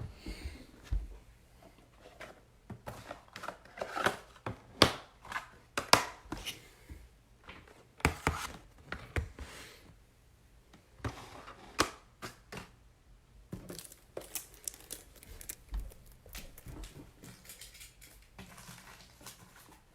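Irregular handling noises of packaging: crinkling, tearing and sharp clicks, with the busiest stretch in the first half.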